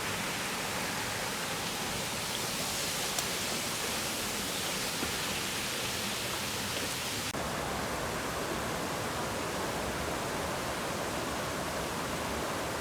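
Waterfall: a steady, even rush of falling water, whose tone changes abruptly about seven seconds in.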